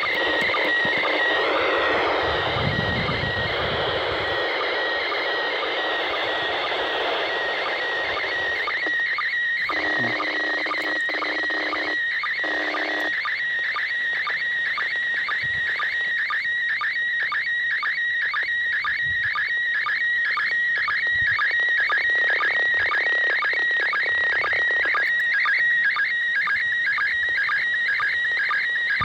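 Slow-scan TV (SSTV) picture signal from the International Space Station coming through an Ailunce handheld radio's speaker: a warbling tone chopped by a steady repeating beat of line-sync pulses. For the first several seconds it is buried in static hiss as the signal comes in weakly, then it runs clean.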